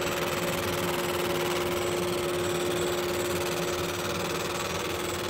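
60-watt MOPA fiber laser engraver marking stainless steel: a steady buzzing hum with one held pitch over an even hiss.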